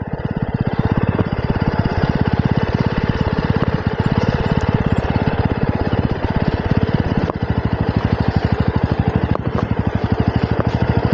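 Jawa 42 motorcycle's single-cylinder engine running steadily, a fast, even train of firing pulses, on a ride down a slippery dirt track.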